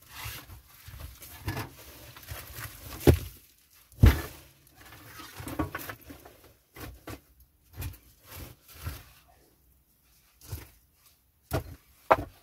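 Bricks being handled and set down, knocking against each other and the dirt floor: a run of dull thunks and scrapes, the loudest two about three and four seconds in, then lighter scattered knocks.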